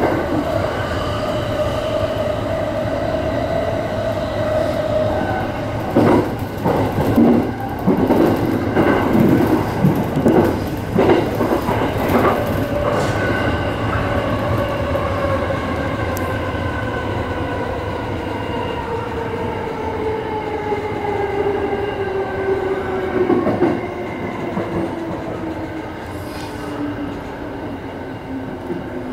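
E217 series electric train heard from inside the cab, its traction motors whining at a steady pitch and then falling slowly as the train brakes into the station. The wheels clatter over rail joints and points from about six to twelve seconds in.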